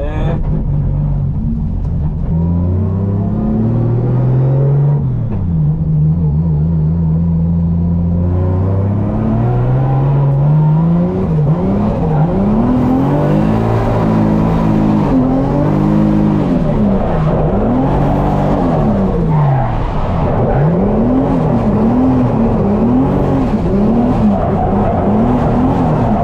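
Toyota GT86 drift car's engine heard from inside the cabin: it runs steadily at first, climbs about a third of the way in, then from about halfway on the revs rise and fall every second or two as the throttle is worked through slides.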